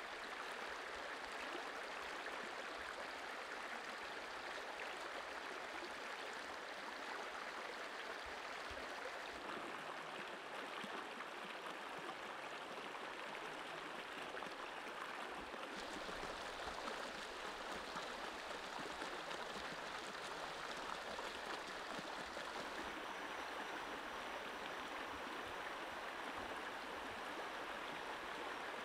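Shallow, rocky stream running over stones: a steady rush of flowing water.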